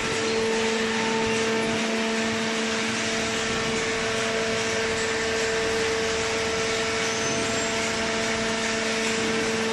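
Hydraulic paper baler running: a steady motor-and-pump hum, a constant low tone with a higher tone above it over an even whirring rush.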